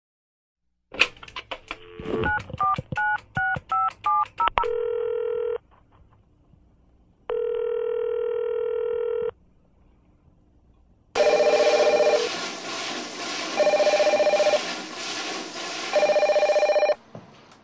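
A telephone number dialed on a keypad: clicks and quick two-note key tones, then two long ringback tones on the line. After that a telephone rings three times, each ring lasting about a second, over a noisy background.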